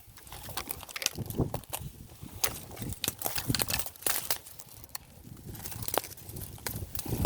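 Footsteps crunching on dry leaf litter and twigs, with irregular crackles and snaps.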